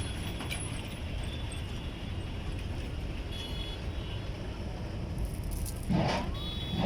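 Steady low rumble of highway traffic, with a brief louder noise about six seconds in.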